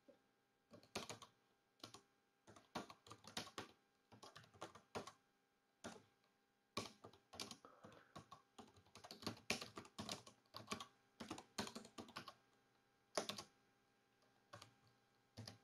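Faint typing on a computer keyboard: quick irregular runs of keystrokes broken by short pauses.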